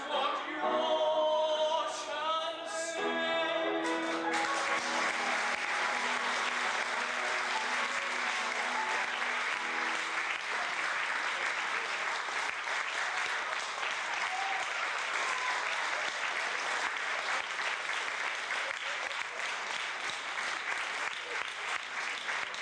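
A sung stage number with accompaniment ends about four seconds in, and then an audience applauds.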